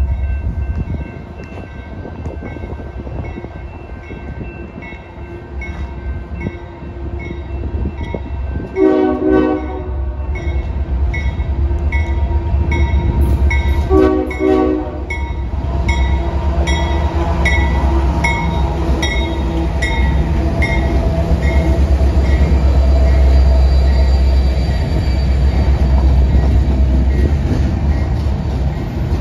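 Diesel locomotive horn sounding two blasts about five seconds apart, over a bell dinging steadily about one and a half times a second. The train's low rumble grows louder through the second half as it passes.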